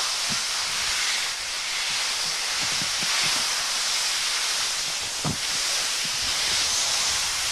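Steady rushing hiss of wind across a camcorder microphone while skiing downhill, mixed with the skis sliding on snow. A short low thump comes about two-thirds of the way through.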